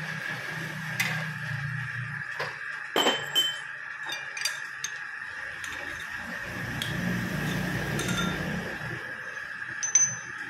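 Several sharp metal-on-metal clinks as a chuck key and steel tools are handled on a stopped lathe's independent-jaw chuck while a workpiece is clamped. The loudest come about three seconds in and near the end, over a steady faint hum.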